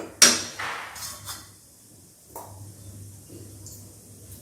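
A metal spoon or ladle striking a cooking pan: one sharp ringing clink, then a few lighter taps.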